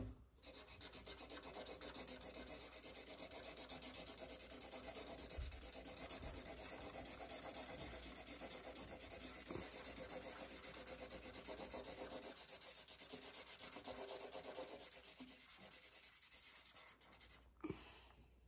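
Green Sharpie felt-tip marker scribbling on paper in quick back-and-forth strokes, colouring in a large area; the scratching stops near the end.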